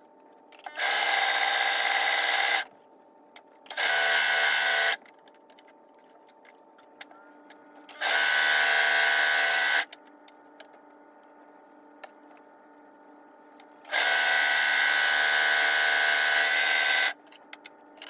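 Brother 1034DX overlock (serger) sewing machine stitching a seam in four short runs, each one to three seconds long, stopping between them, with small clicks of fabric handling in the pauses.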